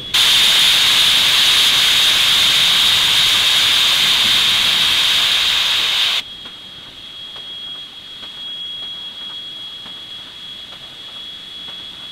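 Safety valve of NSWGR steam locomotive 5917 blowing off: a loud steam hiss that starts suddenly and cuts off about six seconds in, the sign of the boiler at full working pressure. A steady high whine from the locomotive's electric generator runs underneath and carries on once the hiss stops.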